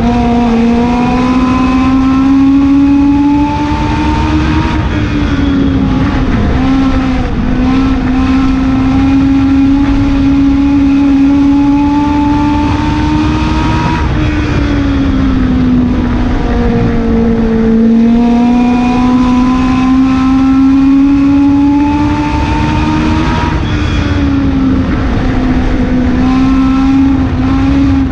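Legend race car's Yamaha four-cylinder motorcycle engine under full throttle, heard from inside the cockpit. The pitch climbs steadily along each straight and drops briefly as the driver lifts for the turns, three times over. A steady rush of tyre and dirt-track noise runs underneath.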